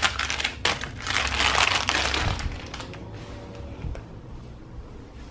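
A paper envelope and crinkly shiny wrapping are handled and crumpled, rustling and crinkling. The noise comes in quick bursts at first, is busiest between about one and two and a half seconds, then drops to softer handling sounds.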